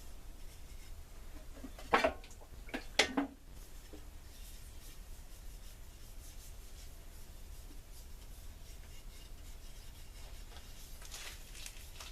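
Boiled linseed oil being rubbed into the wooden handles of a draw knife: a faint, steady rubbing. Three sharp knocks come about two to three seconds in, the loudest sounds.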